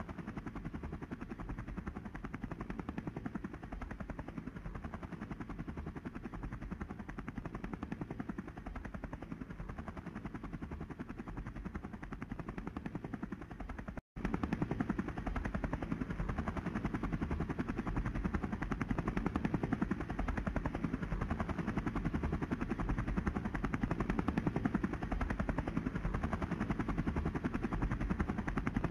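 Helicopter rotor chopping in a fast, even beat over an engine drone. It cuts out for a moment about halfway through, then starts again louder.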